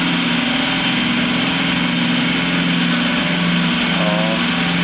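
Cotton candy machine running steadily, its spinning head giving a continuous mechanical hum. A brief faint wavering tone comes in about four seconds in.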